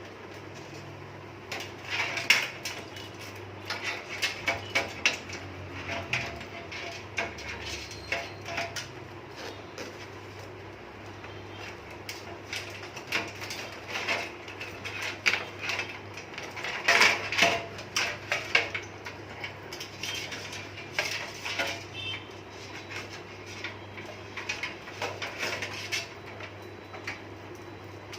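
Irregular clicks and light clattering from handling cables and parts in a metal computer cabinet during assembly, coming in clusters, over a steady low hum.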